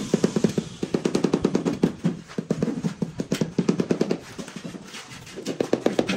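Rubber mallet tapping rapidly on a ceramic plank tile, about ten quick knocks a second in runs with short pauses, bedding the tile down into the mortar.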